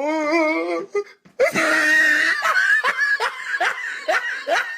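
A person laughing hard: a wavering, drawn-out laugh, a brief break, then a loud shrieking burst of laughter that breaks into a run of short, rising 'ha' bursts, about three a second.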